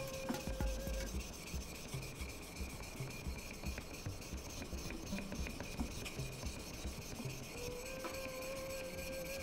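Leather-cutting knife (kawatachi) blade stroked back and forth on a #3000-grit whetstone, an even run of gritty scraping strokes as the bevel is ground.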